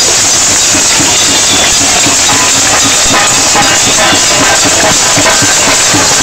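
A crowd banging pots and pans in a cacerolada: a loud, constant metallic clatter of many quick strikes, with voices mixed in.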